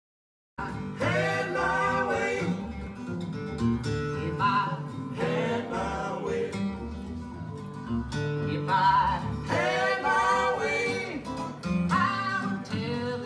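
A recorded song with singing and guitar, played back over a hi-fi system from a record on a turntable. It starts abruptly about half a second in.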